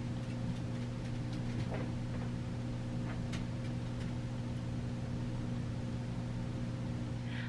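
Steady low electrical hum with a few faint, soft ticks.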